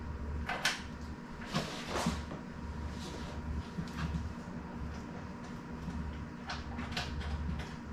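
Short scraping and knocking handling sounds, a few scattered strokes, as hands work on an e-bike's parts and packaging, over a steady low hum.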